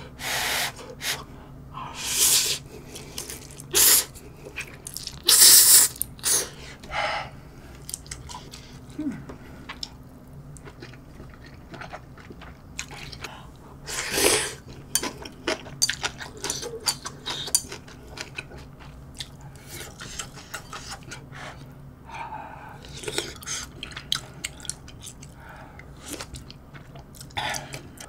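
A person slurping instant ramyun noodles in several loud, short bursts over the first seven seconds and again about fourteen seconds in, with quieter chewing between. Near the end comes a slurp of broth drunk straight from the bowl.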